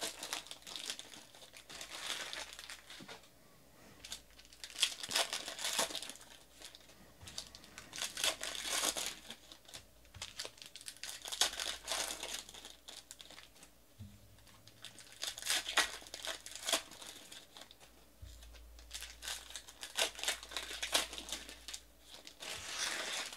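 Foil trading-card pack wrappers crinkling and tearing as packs are ripped open by hand, in bursts every few seconds with short quieter gaps between.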